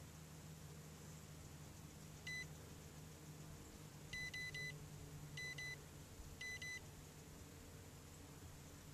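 Short electronic beeps, all at one high pitch: a single beep about two seconds in, then quick groups of three, two and two over the next few seconds. A faint steady low hum runs underneath.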